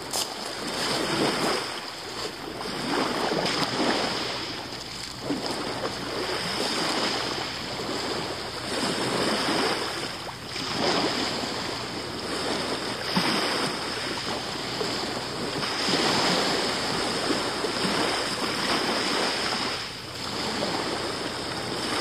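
Small sea waves washing in and out over a shingle beach, the wash rising and falling every few seconds.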